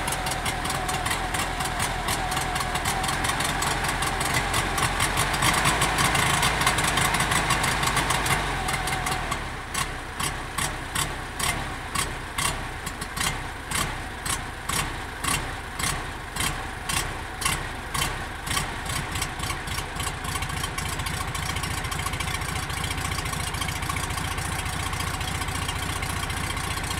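Volkswagen Beetle's air-cooled flat-four running after its first start in a year and a half. It runs at a raised speed, then drops back to idle about eight seconds in. For about ten seconds after that a regular tick and dip in level comes about twice a second, before it settles to a steady idle.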